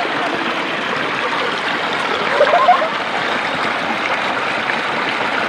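Steady rushing and splashing of flowing water from a stream, with a few brief pitched sounds about halfway through.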